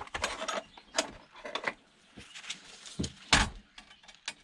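Irregular clicks, knocks and rattles of hard plastic and metal parts being handled as a small cooling fan is worked loose from its clips in a DVD player's case, with the loudest knock about three and a half seconds in.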